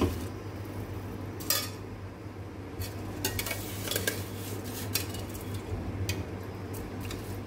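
A metal spoon clinking and scraping against a steel pot while rice is stirred into boiling water, in scattered sharp clinks that come thickest in the middle. A steady low hum runs underneath.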